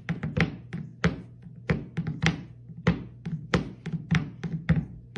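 A cat banging its food bowl against a hardwood floor with its paw: rapid knocks, several a second, in quick runs, as it demands to be fed. Music plays underneath.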